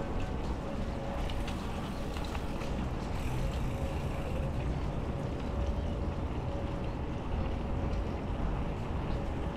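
Ride noise from a mountain bike rolling along a wet paved path: steady wind rush and tyre noise, with a thin steady hum throughout and a few light clicks in the first few seconds.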